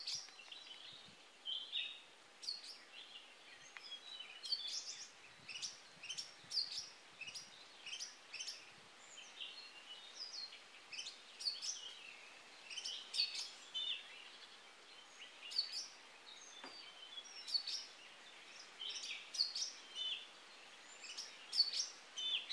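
Oriental magpie robin singing: a steady run of short, clear whistled notes and phrases, about one every second.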